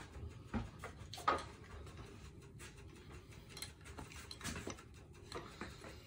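Quiet, with a few faint clicks and knocks of tools being picked up and handled, the loudest a little over a second in.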